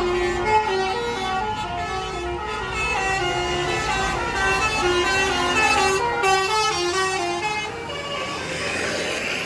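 A bus's basuri musical horn playing a quick melody of short stepped notes. The tune stops about eight seconds in and gives way to a rushing noise.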